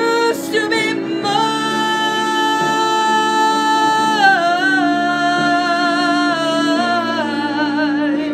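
A woman singing a ballad, holding one long high note for about three seconds, then dropping about four seconds in to a lower note that she holds with strong vibrato until near the end.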